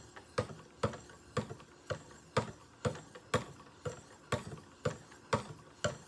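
2200-grit diamond sharpening stones on a guided knife sharpener stroked along a steel knife edge, alternating left and right. The stroke comes in a steady rhythm of about two a second, each a short, sharp scrape.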